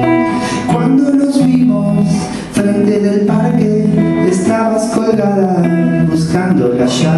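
Live song: a guitar strummed in chords with a man singing over it, with a short break in the playing about two and a half seconds in.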